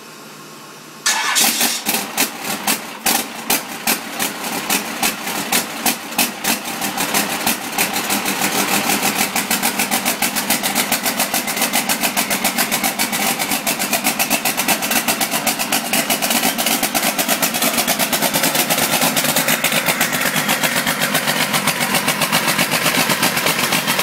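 A 5.9 Cummins six-cylinder diesel with a Bosch VE rotary injection pump catches about a second in and runs. It fires unevenly for the first several seconds, then settles into a steady, even idle. This is its first run after a head rebuild, fed only by the fuel in the fuel filter.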